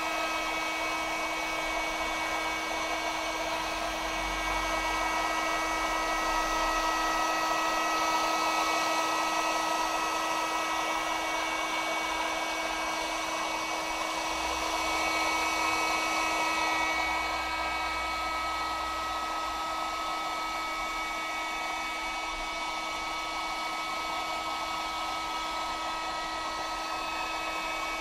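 Handheld electric heat gun running steadily, its fan motor giving a constant whine over the rush of hot air as it fuses fresh inkjet ink on transfer paper.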